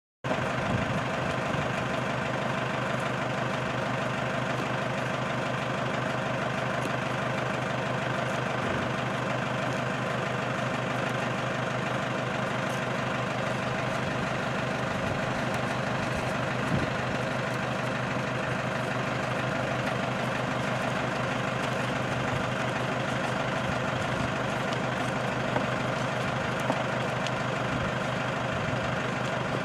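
Safari game-drive vehicle's engine idling steadily, with a few faint clicks.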